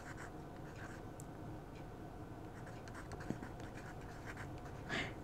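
Pen writing on a paper card: faint, scratchy strokes as the letters are written out.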